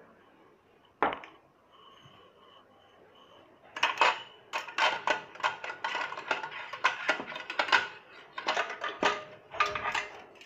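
Metal utensil clinking and scraping against stainless steel bowls: a single knock about a second in, then a rapid clatter of strikes and scrapes for several seconds, as black glutinous rice is spooned out of its steel pot.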